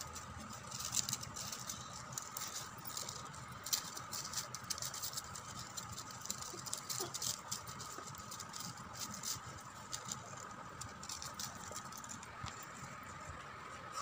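Cut paper strips of a handmade paper flower rustling and crackling as fingers press and fluff the petals, in short irregular crackles, over a faint steady high tone.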